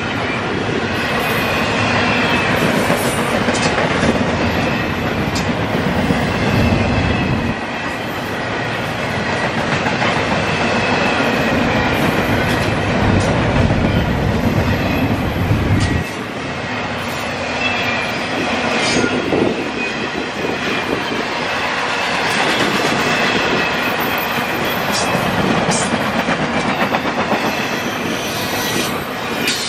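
Double-stack intermodal freight train rolling past close by: steel wheels on the rails with a steady clickety-clack and a heavy low rumble that drops away suddenly a little past halfway.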